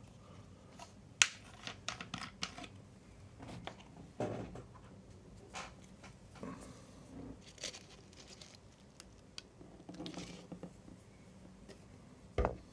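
Irregular light clicks, taps and scraping of small objects being handled on a work surface, with one sharp click about a second in.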